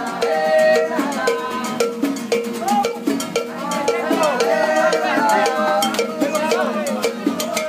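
Cuban street jam: several voices singing together over strummed nylon-string acoustic guitars, with a cowbell struck in a steady beat of about two strokes a second.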